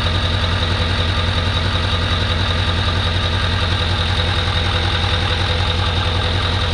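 LML Duramax 6.6-litre V8 turbodiesel idling steadily, with a thin high whine held over the engine note. It is running to circulate fresh fluid through the Allison 1000 transmission while the new pan is checked for leaks.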